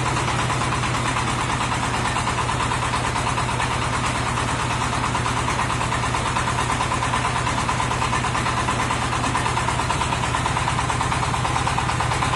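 Portable water-well drill rig running steadily while drilling a borehole: a continuous mechanical hum with a steady high whine.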